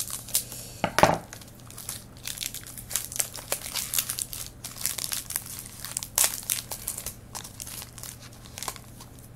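Foil wrapper of a trading-card pack crinkling and crackling as it is cut and torn open by hand, with one louder knock about a second in.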